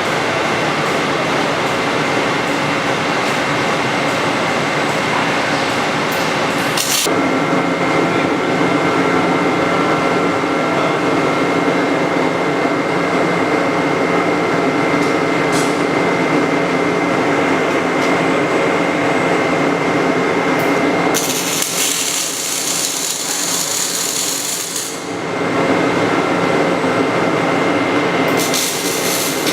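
Robotic welding cell at work: a continuous welding arc crackle with a steady high whine, changing sharply about seven seconds in. A harsher, hissier stretch starts about two-thirds of the way through and lasts several seconds.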